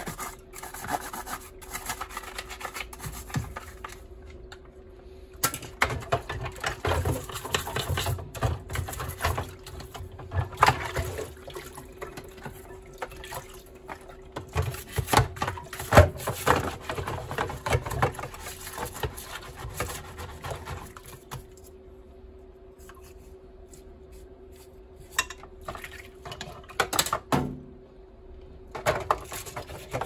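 Brushes scrubbing mould off a plastic washing-machine soap drawer in a sink of water: irregular scrubbing strokes with splashing and occasional knocks of plastic, pausing briefly twice.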